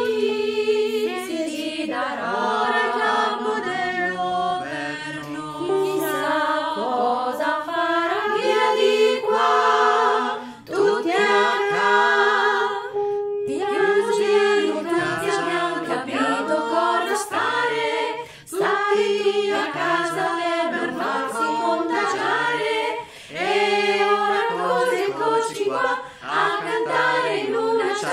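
A small choir of five women and a man singing a cappella in Italian, several voices in harmony. Each voice was recorded separately at home and the parts were mixed together.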